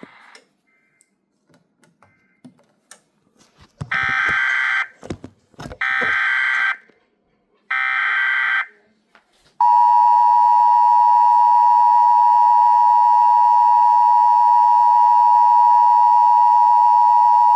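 Emergency Alert System tones: three short bursts of screechy SAME header data tones about two seconds apart, then the steady two-tone attention signal held for about eight seconds. They open a National Weather Service severe thunderstorm warning.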